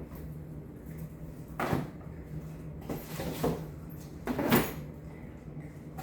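Items and packaging being handled: three short rustling, knocking sounds, the loudest about four and a half seconds in, over a low steady hum.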